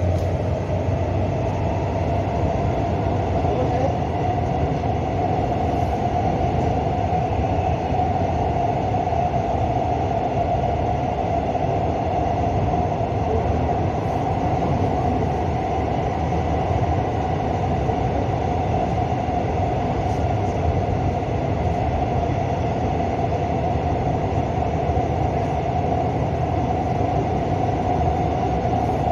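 Subway train running at steady speed through a tunnel, heard from inside the car: a constant rumble of wheels on the rails with a steady whine held at one pitch.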